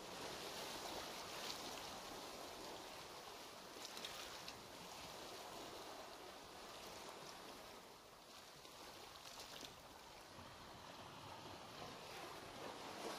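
Faint, steady rushing of water, an even hiss with a few brief louder swells.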